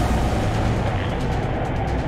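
Background music over a steady low rumble of a motorcycle engine and wind on the ride.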